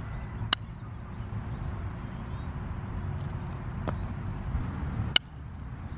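Deer antler billet striking the edge of an obsidian axe head, knocking off flakes: sharp clicks, one about half a second in and a louder one near the end, with a fainter tap about four seconds in. A low steady rumble runs underneath.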